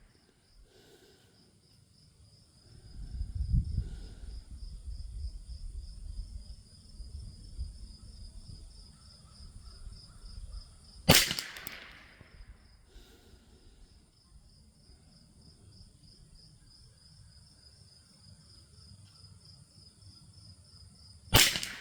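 Two single shots from a Thompson Center T/CR22 semi-automatic .22 LR rifle firing SK Standard Plus ammunition, about ten seconds apart, the second near the end. Each is a sharp crack with a short tail. A low rumble runs from a few seconds in until the first shot, and insects buzz steadily in the background.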